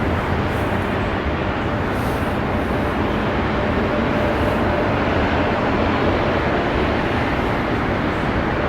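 Three jet engines of a McDonnell Douglas MD-11F freighter running at takeoff thrust: a steady, loud roar with a faint steady whine running through it.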